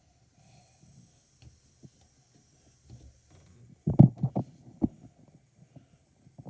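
Soft low thumps and knocks of objects being handled, loudest in a quick cluster about four seconds in.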